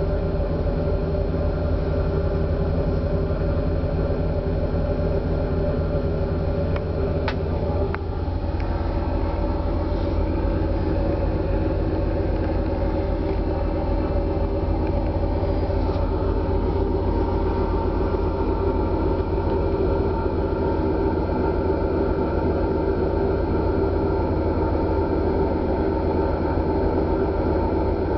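Steady low rumble and hum of a cruise ferry's engines and machinery, heard inside a passenger cabin, with one faint click about seven seconds in.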